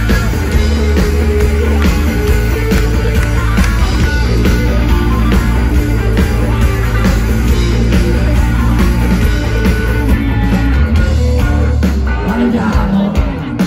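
Rock band playing live through a festival PA, heard from within the crowd. The heavy bass drops out near the end.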